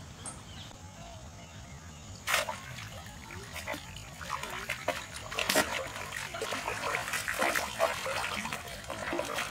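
A hooked fish thrashing at the surface of shallow canal water while it is pulled in on a hand line. A sharp splash comes a couple of seconds in, then rapid, irregular splashing that grows busier and louder toward the end.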